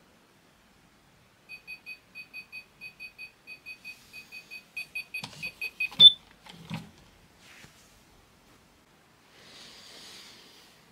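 Smiggle alarm clock beeping in quick groups of short high beeps that grow louder, cut off about six seconds in by a hand slapping its top with a sharp thump, then a couple of softer knocks. Near the end there is a soft rustle of bedding.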